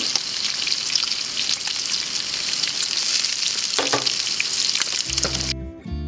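Bacon sizzling in a frying pan on a camp stove: a dense, crackling hiss full of small pops. It cuts off near the end, giving way to acoustic guitar music.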